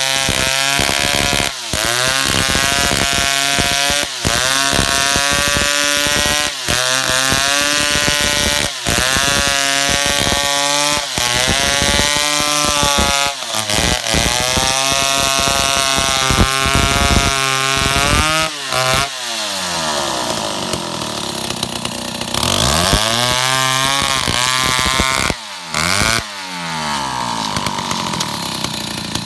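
A two-stroke Stihl chainsaw cutting through a eucalyptus log, its engine pitch sagging under load and picking up again every couple of seconds. About two-thirds of the way through the saw drops back to a lower running speed, revs up briefly once and settles near idle.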